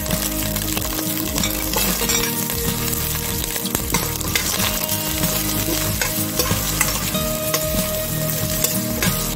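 Garlic and sliced red onion sizzling in hot oil in a stainless steel pot. A metal spoon stirs them, scraping and clinking irregularly against the pot.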